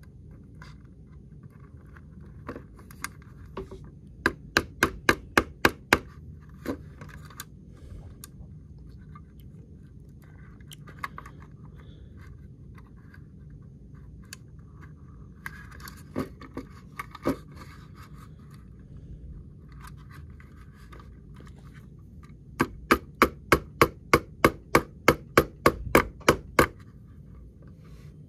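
Small parts being worked by hand, giving sharp taps in quick runs of about four to five a second. There is a short run about four seconds in and a longer one of about four seconds near the end, with light scraping and handling noises between.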